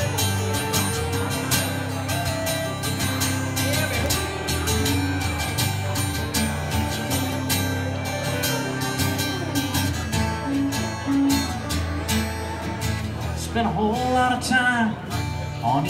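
Live country music: steady acoustic guitar strumming under pedal steel guitar playing sliding, sustained melody lines in an instrumental break. A man's singing voice comes back in near the end.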